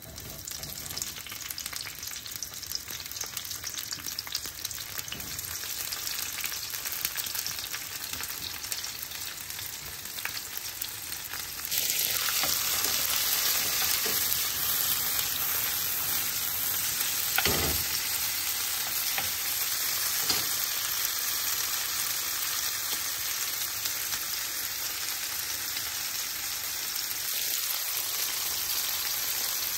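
Food frying in a pan with a steady sizzle that gets clearly louder about twelve seconds in.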